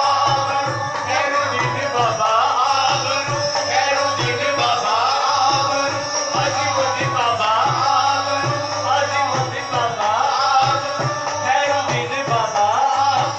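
Live qawwali: male voices singing through microphones over a harmonium, with a steady hand-drum rhythm.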